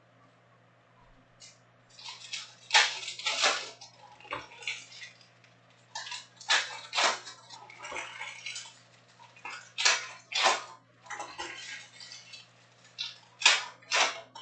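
Topps Chrome trading card packs being torn open by hand, with wrappers crinkling and cards handled in repeated short crackly bursts, often in pairs every three to four seconds. A faint steady hum runs underneath.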